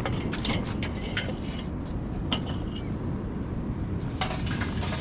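Lit charcoal being tipped out of a metal chimney starter into a kettle grill: a few light metal clinks, then a short rush of coals clattering and crackling into the grill near the end, over a steady low rumble.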